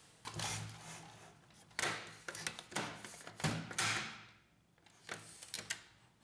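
Plastic parts of a laser printer's housing being handled and fitted: a run of sliding and rubbing noises with several sharp plastic clicks.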